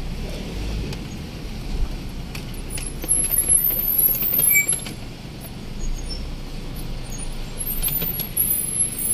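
Steady low rumble of a car's engine and tyres heard from inside the cabin as it drives slowly along a rough lane, with a louder run of knocks and rattles from about three to four and a half seconds in.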